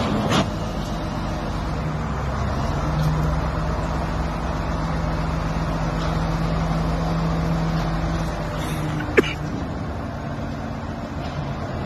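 Kato mobile crane's engine running steadily while its boom handles a shipping container. A steady hum comes in about three seconds in and fades near nine seconds. A single sharp knock follows about nine seconds in.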